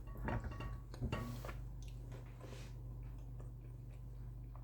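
Quiet eating sounds: a few light clicks of cutlery and soft chewing and squishing, mostly in the first second and a half, over a low steady hum.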